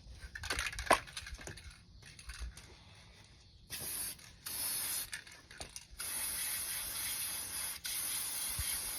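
Aerosol air-filter oil sprayed onto a new foam air filter in four hissing bursts, two short and then two long ones, after a second or so of rustling and clicking handling noises.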